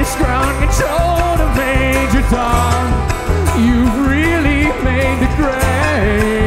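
Bluegrass band playing live: a wavering, sliding lead melody over a steady bass line.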